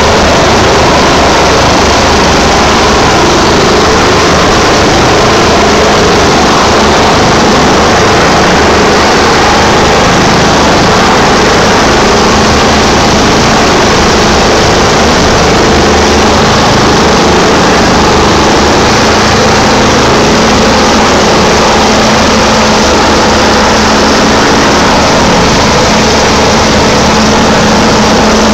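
Rescue helicopter hovering close by: the loud, steady running of its turbine engines and rotors, with no pause or change.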